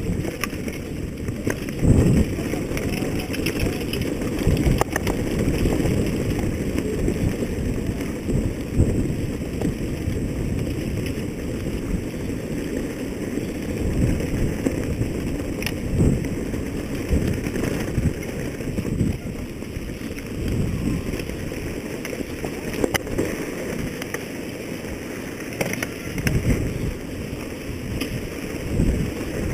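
Heavy wind buffeting on the microphone: a dense, loud low rumble, broken by frequent sharp knocks and rattles.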